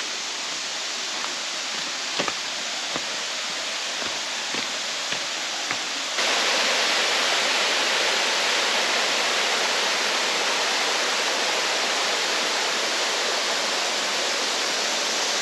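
Creek water pouring over a low dam, a steady rush of falling water. A few short knocks come in the first six seconds, and about six seconds in the rush suddenly gets louder and stays so.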